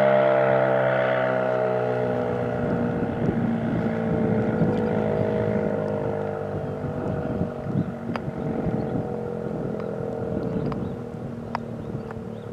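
Outdoor warning siren winding down at the end of its test, its tone sliding slowly lower and fading away. Wind buffets the microphone.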